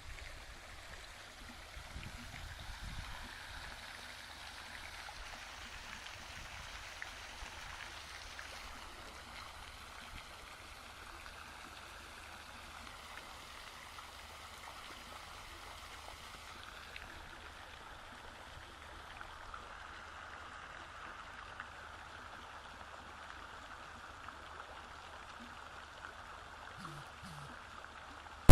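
Running water: a steady flowing hiss with no break.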